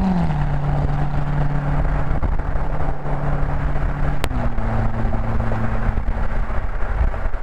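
Corvette V8 through its stock NPP exhaust, running steadily under way; its drone drops in pitch twice, just after the start and again about four seconds in, over a constant low road and wind rumble. A single sharp click comes with the second drop.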